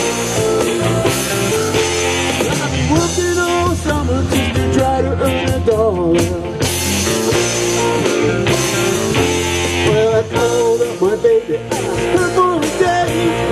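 Live rock-and-roll band playing an instrumental passage, with electric guitars, bass, drums and saxophone; a lead line bends in pitch over the steady rhythm.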